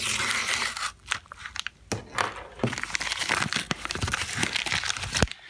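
A postal package being torn open by hand: a burst of tearing at the start, then irregular crinkling, crackling and clicks of the packaging being handled.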